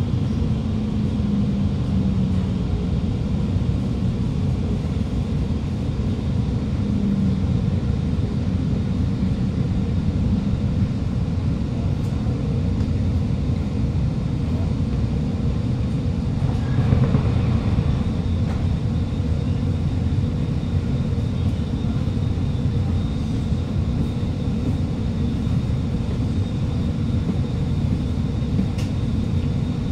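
Steady running rumble of an Alstom Movia R151 metro train, heard from inside the carriage as it runs into a station and comes to a stop, with a faint hum early on and a brief louder patch about two-thirds of the way through.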